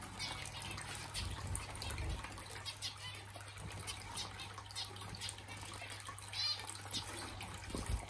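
Small finches pecking at seed, a stream of light, scratchy ticks, with a few short high calls, the clearest about six and a half seconds in. Two soft low thuds come about one and two seconds in.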